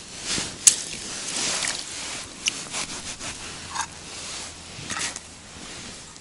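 Close handling noise from an angler unhooking a small fish and picking up a short ice-fishing rod: clothing rustling and scraping, with several sharp clicks, the loudest under a second in.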